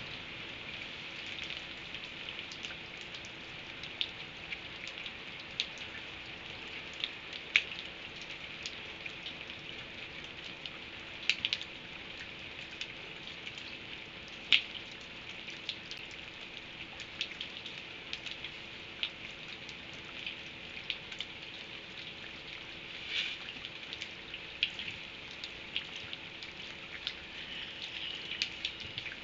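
Steady rain hiss, with irregular sharp taps of drops striking a hard surface; a few taps stand out louder. A faint steady hum sits underneath.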